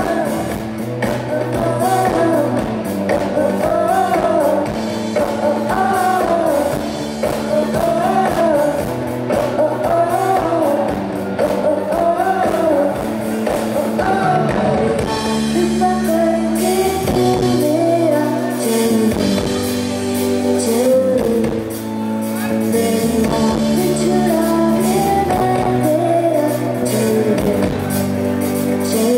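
A live pop-rock band with a woman singing lead over guitars, drum kit and keyboard. The drums are busy at first and thin out after about fifteen seconds.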